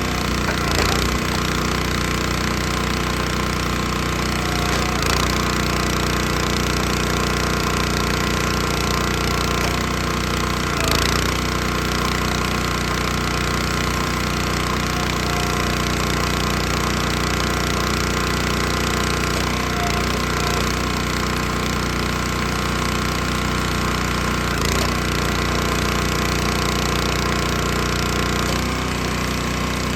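Log splitter's small petrol engine running at a steady, even speed, with a few short sharp knocks.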